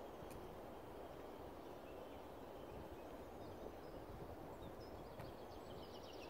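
Faint steady outdoor background noise with small birds chirping high and thin, and a quick trill of evenly spaced notes near the end.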